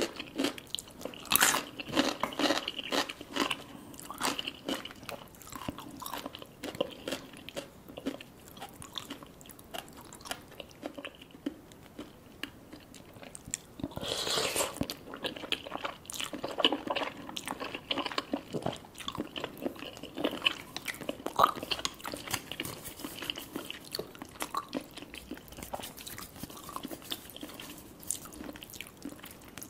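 Close-miked eating of Korean spicy stew noodles: steady chewing with many short, sharp clicks of biting, and a longer slurp about halfway through.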